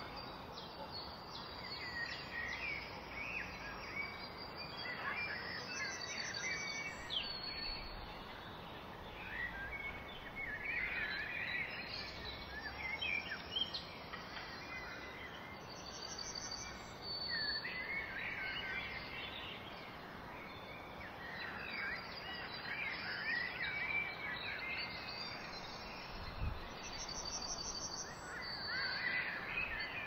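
Several songbirds chirping and singing over a steady outdoor hiss of wind through grass. A high, pulsing trill comes back about every ten seconds.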